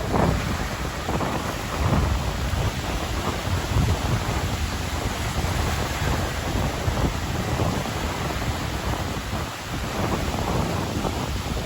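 Atlantic Ocean surf breaking and washing ashore in a continuous rush of noise that swells and eases, with a deep low rumble from wind buffeting the microphone.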